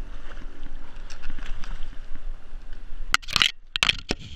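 Splashing of a striped bass thrashing at the water's surface as it is grabbed by the lip and lifted out. It comes as a few short, loud bursts starting about three seconds in, after a quieter stretch of water noise.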